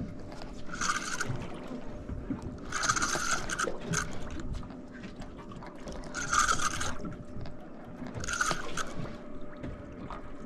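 Spinning reel working under the load of a hooked fish, buzzing in four short bursts of under a second each.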